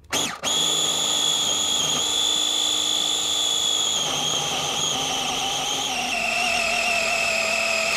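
Food processor motor running steadily while blending frozen banana pieces, a high whine whose pitch sags slightly about halfway and again later as the load changes, stopping abruptly at the end.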